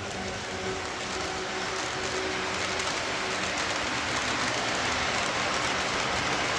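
Toy electric train, a steam locomotive pulling freight cars and a caboose, running along its track close by: a steady rolling rumble of wheels and motor that grows louder as it nears.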